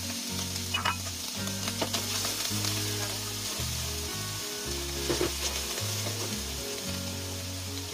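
Diced Chinese sausage, dried shrimp, scallop and mushrooms sizzling in oil in a wok, stirred with a spatula that clicks and scrapes against the pan now and then. Background music runs low underneath.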